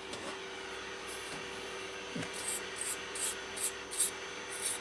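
Brush bristles scrubbing the dusty fins of a CPU heatsink in quick strokes, about three a second, starting about two seconds in.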